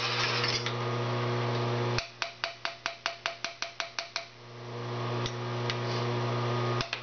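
Rapid light hammer taps, about five a second and each with a short metallic ring, on an aluminum workpiece held in a milling-machine vise, seating it down firmly onto the parallel. One run of taps starts about two seconds in and lasts about two seconds; after a pause a second run begins near the end. A steady low hum lies under the quieter parts.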